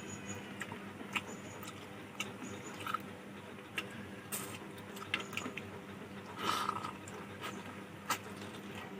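A person eating rice and fish curry close to the microphone: chewing and mouth smacks with scattered short clicks, and a brief louder rustle about six and a half seconds in, over a faint steady hum.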